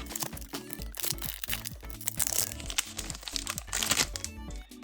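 Foil wrapper of a trading-card booster pack crinkling in several sharp bursts as it is handled and opened, over background music.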